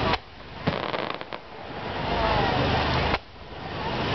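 Aerial firework shells bursting overhead in several sharp bangs, unevenly spaced, over a steady background of crowd and open-air noise. After each of the louder bangs the background drops away briefly before it returns.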